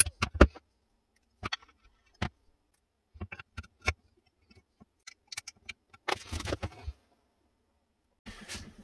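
Scattered clicks and light knocks of a beech rifle stock and its metal cheek-riser posts being handled and fitted together on a workbench mat, with about a second of rubbing and scraping about six seconds in.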